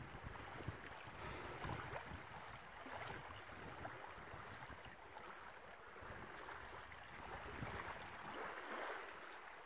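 Small waves washing onto a sandy shore with wind on the microphone: a steady rushing noise that swells and eases gently.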